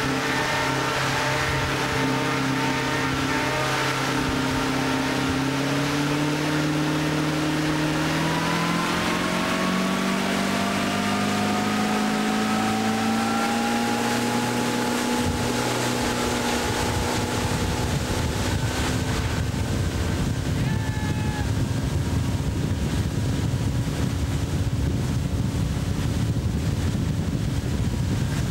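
Polaris snowmobile's two-stroke engine running as the sled skims across open water. Its note climbs steadily from about six seconds in to about fifteen, then holds. Wind buffets the microphone more in the second half.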